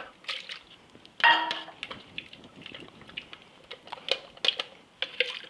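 Kitchenware knocking as pea pod purée is scraped from a plastic food processor bowl into a metal food mill: one louder clink with a brief ring about a second in, then a few light scattered knocks and scrapes.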